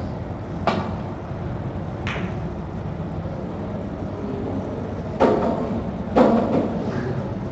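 Snooker balls clicking during a shot: a sharp click as the cue tip strikes the cue ball, then a second click about a second and a half later as it hits a red. About three seconds after that come two louder knocks, a second apart, that ring on briefly, over a steady low room hum.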